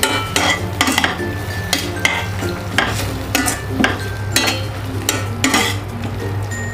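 A spoon stirring and scraping through a pan of prawns in a thick, simmering tomato masala, about two strokes a second, with a light sizzle. A steady low hum runs underneath.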